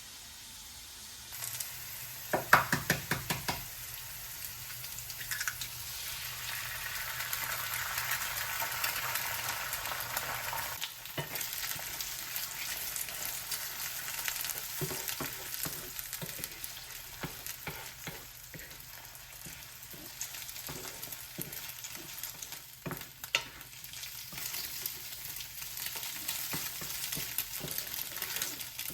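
Food frying in a pan, sizzling steadily from about a second in, with a quick run of sharp taps soon after and scattered clicks of a utensil stirring in the pan.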